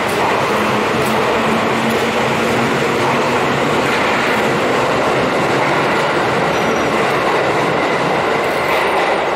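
JR 205 series 600-subseries electric commuter train pulling out of a station and accelerating past, its cars rolling by close with a steady, loud running noise of wheels on rail. A low hum sounds for the first three seconds or so.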